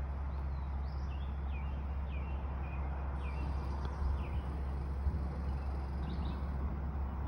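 Birds chirping: a string of short, repeated chirps, over a steady low rumble.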